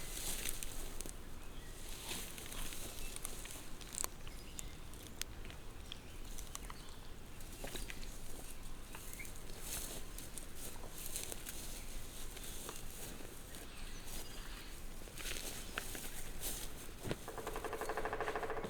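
Outdoor ambience with scattered light taps and clicks throughout. Near the end comes a short buzzy animal call of about a second and a half.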